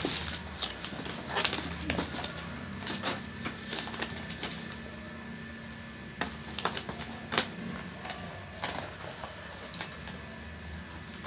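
Cardboard shoe box being handled and opened by hand, with scattered scrapes, taps and paper rustles over a faint steady low hum.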